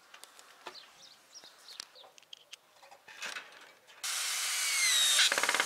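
Cordless drill-driver driving a screw into a wooden board. It starts suddenly about four seconds in, its motor whine rising in pitch for over a second, then breaks into rapid even clicking near the end. Before it, only faint clicks and rustles.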